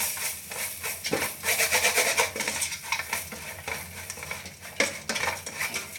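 A utensil stirring and scraping frying onions and ground spices around a pan, with repeated short scrapes and clinks over a light sizzle.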